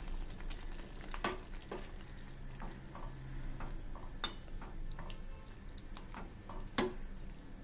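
A ladle stirring mashed dal into radish sambar in a metal pan: wet stirring with scattered clinks and scrapes of the ladle against the pan, the sharpest about one, four and seven seconds in.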